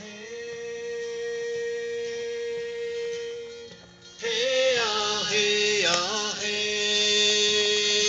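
Background music with a singing voice: one note held for about three and a half seconds, then after a short dip the music returns louder, the voice sliding between pitches over a steady drone.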